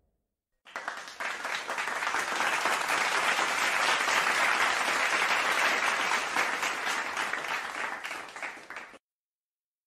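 Applause from many hands clapping. It starts about a second in, swells, and dies away near the end.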